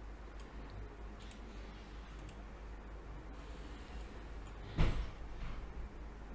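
Faint computer mouse clicks, a few scattered ticks, over a low steady hum, with one louder thump about five seconds in.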